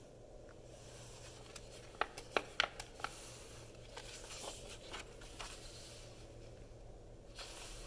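Pages of a hardcover picture book being turned by hand: a few short paper flicks and taps about two to three seconds in, then softer rustling of the pages.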